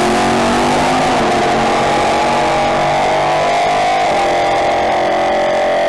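A drag-racing Chevrolet Camaro's engine running at full throttle down the strip. Its pitch climbs slowly and drops about four seconds in.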